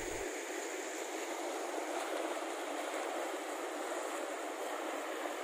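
Rushing floodwater of an overflowing stream: a steady hiss of fast-flowing water with no low rumble.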